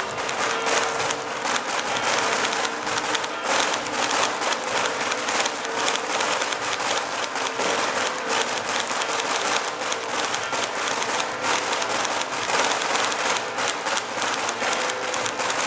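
Large crowd applauding: dense, continuous clapping from many hands, steady throughout.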